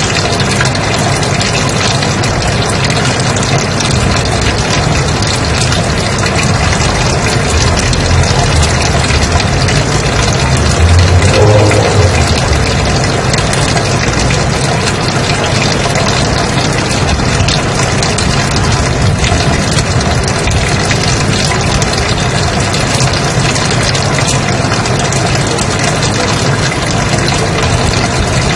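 Steady white noise, an even hiss across the whole range. About eleven seconds in it briefly swells, with a short low rumble.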